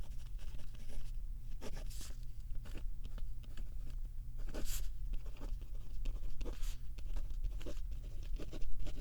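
Handwriting in a paper notebook, close up: irregular scratchy strokes of a writing tip on the page as a list of tasks is written out.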